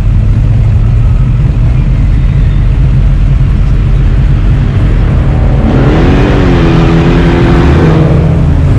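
Car engine running steadily at a standstill, then revving up about six seconds in as the car pulls away: the engine note rises and then levels off.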